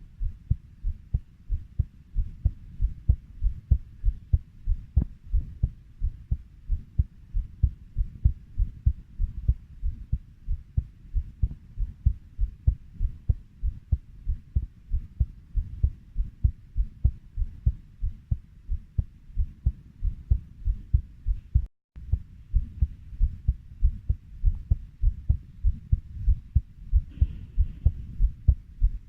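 Heartbeat at a steady 90 beats per minute: regular low thumps, each beat a lub-dub pair, with an instant's dropout about three-quarters of the way through.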